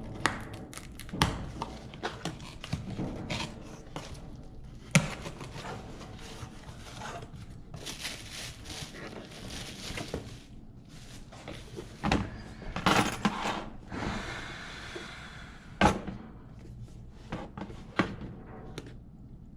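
Objects being handled by hand: an irregular run of clicks and knocks, the sharpest about five, twelve, thirteen and sixteen seconds in, with two spells of rustling like packaging being moved.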